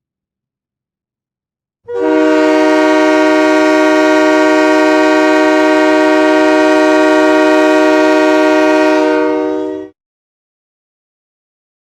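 Ice hockey goal horn: one long, steady air-horn blast of about eight seconds, several tones sounding together as a chord. It starts about two seconds in and stops shortly before the end.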